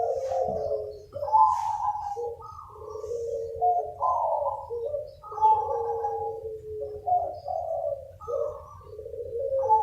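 Several zebra doves cooing continuously, their rolling coos overlapping as the birds answer one another, over a faint steady low hum.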